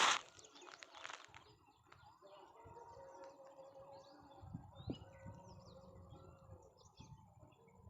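Small birds chirping repeatedly in short calls over a faint steady hum, with occasional low rustling, and a brief noisy burst at the very start.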